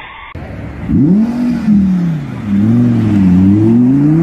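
Audi R8 engine revving hard. Starting about a second in, its pitch rises and falls several times as it accelerates.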